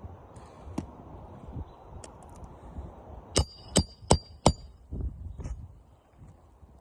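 Hammer driving a roofing nail into a replacement shingle: four quick, ringing metal-on-metal blows about a third of a second apart, a little past the middle, over the rustle of handling.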